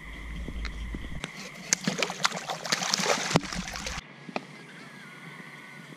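Splashing and sloshing in shallow water as a freshly caught catfish is handled, loudest in the middle seconds. Night insects chirr steadily behind it, and the sound drops to just the insects about four seconds in.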